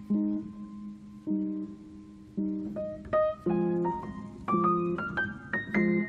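Background piano music: a low chord struck about once a second under a melody, the notes coming quicker and higher from about three seconds in.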